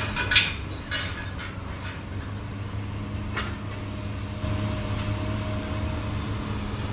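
Heavy diesel engine of an excavator or truck tractor running steadily with a low hum, with a few sharp knocks in the first second.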